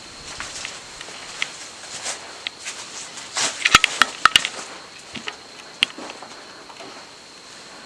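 Irregular crunching and sharp cracks, with several loud snaps close together about four seconds in and another near six seconds, over a faint steady high whine.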